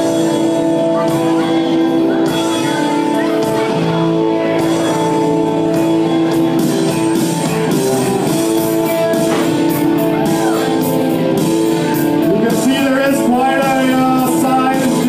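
Music with guitar over a steady beat, with singing.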